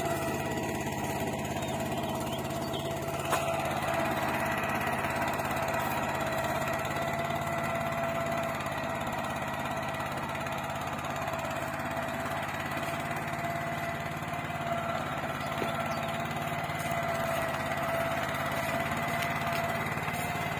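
Swaraj Code mini tractor's small petrol engine running steadily under load as it pulls a ridger through soil.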